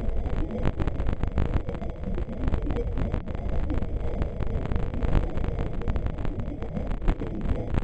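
Fabricated 'space sound' for a moon: a steady low rumble with dense, irregular crackling over it, not a real recording.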